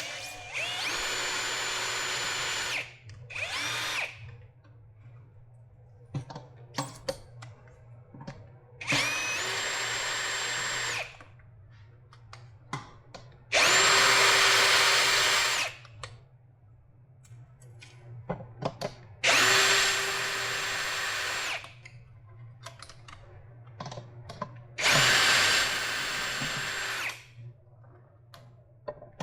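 Power drill/driver backing screws out of a battery pack's casing, in six short runs, most about two seconds long, its motor whine rising as each run starts. Small clicks of screws and handling come between the runs.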